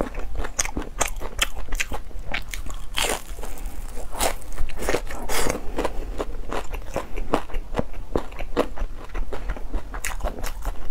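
Chewing a mouthful of crispy breaded fried chicken cutlet: a fast, irregular run of crunches and crackles.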